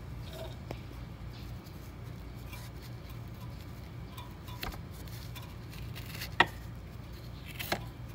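Daikin air-conditioner outdoor unit running with a steady low hum and faint squeaks from its fan motor, a sign of a worn or damaged fan-motor bearing. A few sharp clicks sound in the second half, the loudest about six seconds in.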